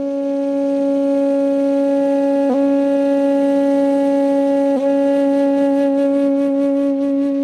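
Outro music: a single long wind-instrument note held at one steady pitch, briefly broken and taken up again about two and a half seconds in and again near five seconds.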